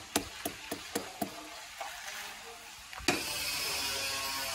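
Rubber mallet tapping a ceramic floor tile to bed it into the mortar, light taps about four a second that stop after the first second or so. A little after three seconds in, a steady hiss-like background starts suddenly.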